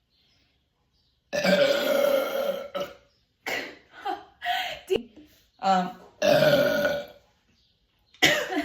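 A person burping loudly, over and over. A long burp of about a second and a half comes after a moment of quiet, then a few short ones, then another long burp, and a short one near the end.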